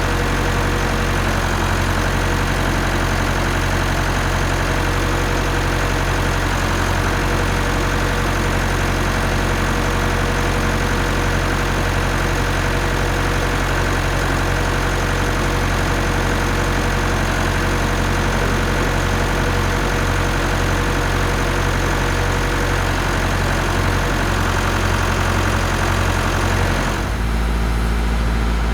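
Tractor engine running steadily, driving the hydraulics of a forest crane used as a tyre bead breaker. About two seconds before the end the note changes abruptly to a deeper, heavier hum.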